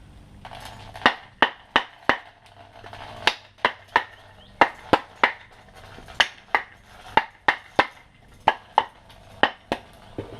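Repeated sharp knocks in quick runs of three or four, about three a second: tool strikes while a hatchet head is being fitted to an old wooden handle.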